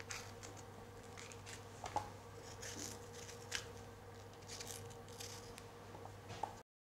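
Faint crisp snaps and rustles of fingers pulling the seeds and white ribs out of a red bell pepper, with a few sharper clicks. The sound cuts off to dead silence near the end.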